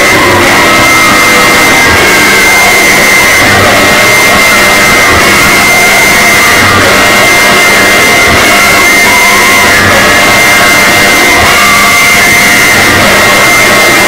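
Mock emergency alert alarm, deliberately boosted until it is heavily distorted and extremely loud: a steady high tone over a dense wash of clipped noise that never lets up.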